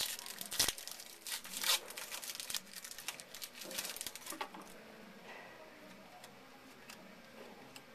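A pack of baseball cards being torn open: the wrapper rips and crinkles in a quick run of rustling for the first four seconds or so, then only faint handling sounds.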